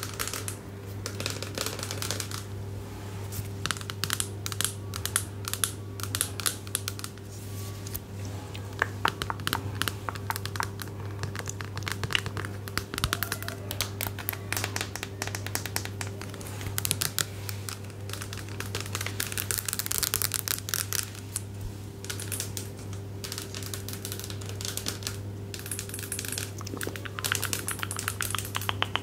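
Close-miked crinkling with dense small clicks and taps, an ASMR trigger, over a steady low hum.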